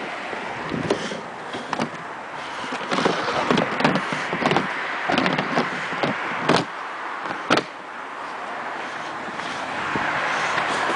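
Irregular knocks and rubbing from a handheld camera being carried while walking, with a sharp click about seven and a half seconds in, over a steady outdoor noise that grows a little louder near the end.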